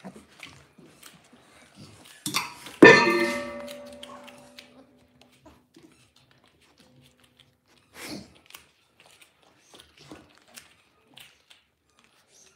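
A sudden metallic clang about three seconds in, just after a short scrape; its ringing tone dies away over about two seconds. Around it, faint scuffles and soft clicks from a litter of Dalmatian puppies wrestling on a rug.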